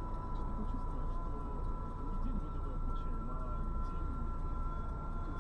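Car engine idling, heard from inside the cabin as a steady low rumble, with two faint steady high tones above it and faint voices in the distance.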